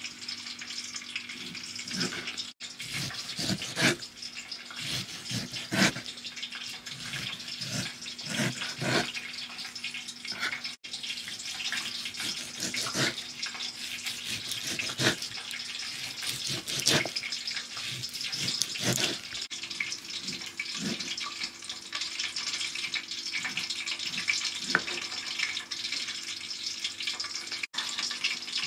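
Kitchen cooking sounds: a steady hiss with irregular knocks and clatter about once a second.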